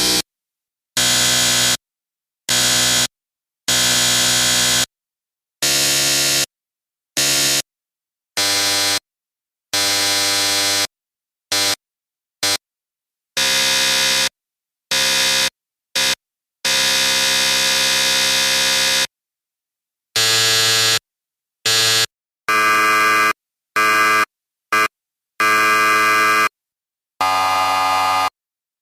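A rapid series of electric buzzer blasts, each a harsh steady buzz that starts and stops abruptly, with silent gaps between. They range from short beeps of a fraction of a second to a long buzz of over two seconds in the middle, and the pitch and tone change from one buzz to the next.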